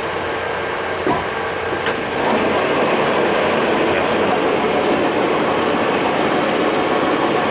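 Samstar 40 x 160 engine lathe running under power, a steady mechanical running noise from its headstock drive. A click comes about a second in, and the running noise grows louder about two seconds in and holds.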